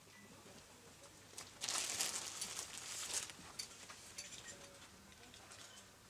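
Hands pressing and rubbing wet clay into a wooden mould, with a burst of scraping hiss about one and a half to three seconds in and scattered light clicks.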